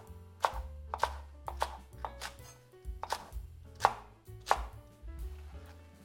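Kitchen knife chopping cicorione leaves and stalks on a wooden cutting board: about eight sharp knocks over the first four and a half seconds, some harder than others.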